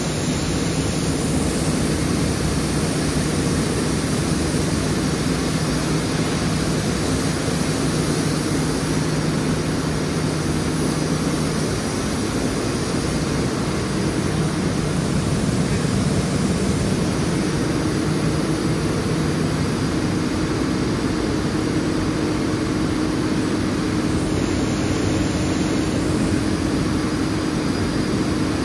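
Hergen Crescent-former paper machine running in its machine hall: a loud, steady mechanical din, with a low hum that gives way to a slightly higher hum about halfway through.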